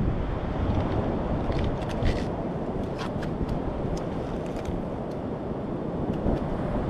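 Wind buffeting the microphone over the steady wash of surf, with a few faint clicks between about one and a half and three and a half seconds in.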